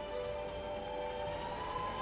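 Background music with steady held tones, one of them sliding slightly upward near the end.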